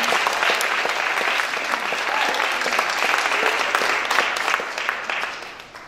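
Church congregation clapping steadily, dying away near the end.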